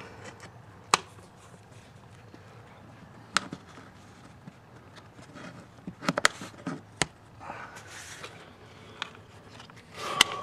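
Air cleaner housing latches being pressed down and snapped shut by hand on a Geo Metro's throttle-body air cleaner, giving a series of sharp, separate clicks with a quick cluster of them about six seconds in. Rubbing and scraping of the plastic cover come in between.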